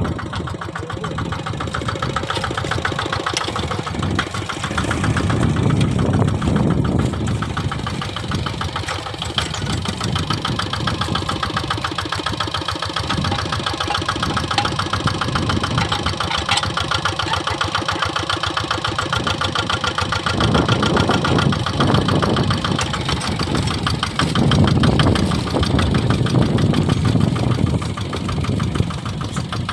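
Kubota RD 65 DI-1S single-cylinder diesel engine on a Quick Impala hand tractor running with a rapid, steady knock while plowing a wet rice field. Its note grows louder and deeper a few times as the load comes on.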